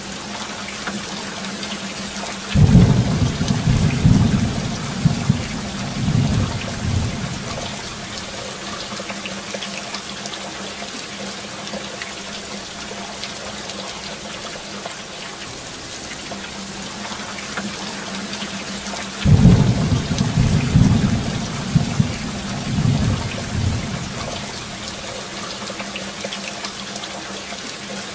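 Steady rain with two rolls of thunder. The first starts suddenly about two and a half seconds in, the second about nineteen seconds in, and each rumbles for around five seconds with several swells.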